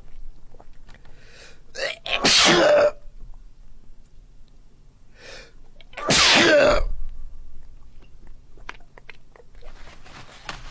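A person sneezing loudly twice, about two seconds in and again about six seconds in.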